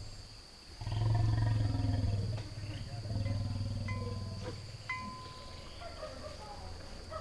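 An elephant giving a deep rumbling call, one long call about a second in and a shorter one in the middle, against a steady chirring of insects. A bell rings faintly twice in the second half.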